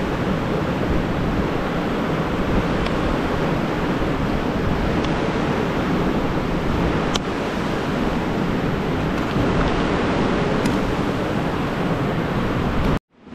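Steady rushing of a river waterfall, an even wash of falling water with a few faint ticks over it; it cuts off abruptly near the end.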